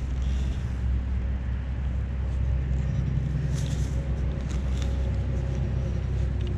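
Handheld pinpointer probe scraping against soil in a dug hole, a few short scrapes, over a steady low rumble. A faint steady hum joins about two seconds in.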